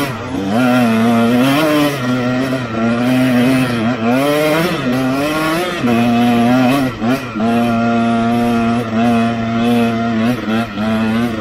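2010 KTM 125 EXC's single-cylinder two-stroke engine running under way, its pitch rising and falling with the throttle, then holding steady from about halfway through.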